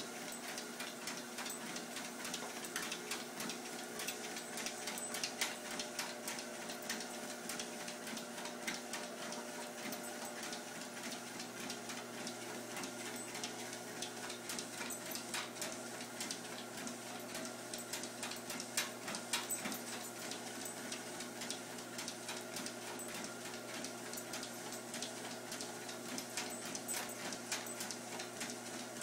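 Electric treadmill motor and belt running with a steady hum, while a dog trots on the belt, its paws and claws making irregular clicks and pats.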